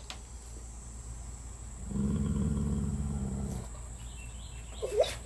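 A dog growling low for about a second and a half, starting about two seconds in, with a short higher whine near the end.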